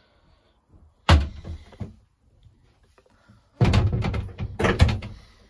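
Glass shower door swung shut with a thunk about a second in, then knocking and rattling against its frame for about a second and a half as it is handled again near the end.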